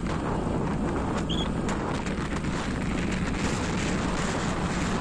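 Wind buffeting the microphone of a moving motorbike, with the bike's engine running steadily underneath.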